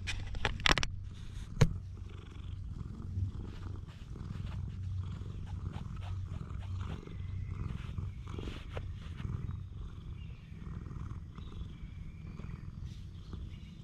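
Domestic cat purring steadily right at the microphone as it is stroked. A few sharp clicks come in the first two seconds.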